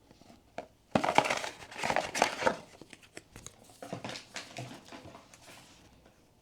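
Blind-box packaging crinkling as it is handled, in two bouts: one about a second in, the second around four seconds in.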